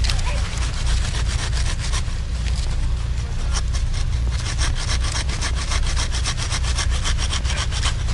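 Small ice-fishing reel ticking rapidly as line is run through the ice hole, the clicks coming faster and denser about halfway through, over a low rumble of wind on the microphone.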